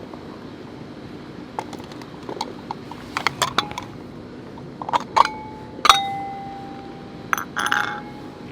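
Clinking of metal against a cat-food dish as food is served. A scatter of light taps is followed by a few sharp strikes about five to six seconds in. These ring on briefly with a clear tone, and the loudest comes about six seconds in.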